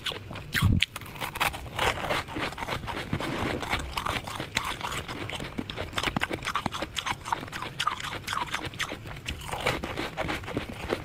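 Soft, frosty ice being bitten and chewed close to the microphone: a dense run of crisp crunches and crackles, with one heavier thump just under a second in.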